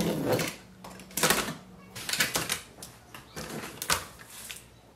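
Blade slitting the packing tape along the seam of a cardboard box, a series of short scratchy strokes, followed by the cardboard flap rustling as it is pulled up.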